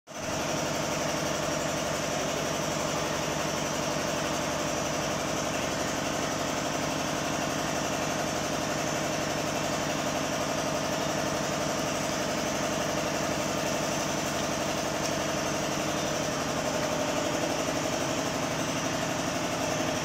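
Milking machine's vacuum pump motor running with a steady, even hum.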